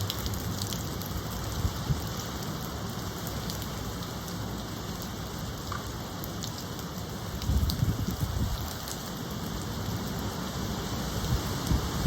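Steady rain falling, with scattered sharp drop hits. Low gusts of wind come in about halfway through and again near the end.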